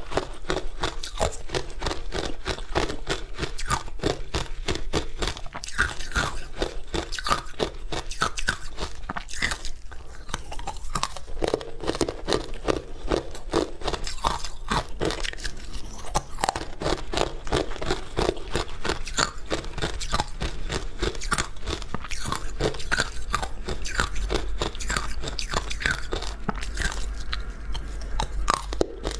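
Close-miked crunching and chewing of powdery ice coated in matcha powder: a dense, continuous run of crisp crunches from mouthful after mouthful.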